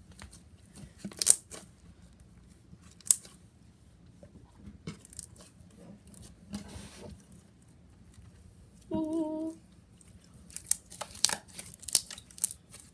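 Homemade glue-and-shampoo slime full of air bubbles being stretched and squeezed, giving scattered sharp pops and crackles, a burst of them near the end.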